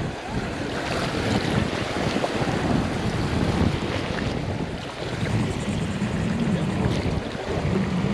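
Wind buffeting the microphone in a fluctuating low rumble, over surf washing onto a beach.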